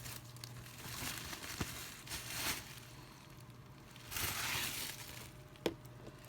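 Plastic packaging crinkling and rustling in several short bursts as a figure is unwrapped, the longest and loudest about four seconds in, with a sharp click near the end.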